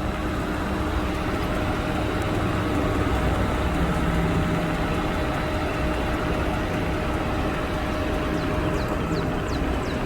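Idling engine running steadily, a low rumble with a constant hum over it. A few faint, short high chirps come near the end.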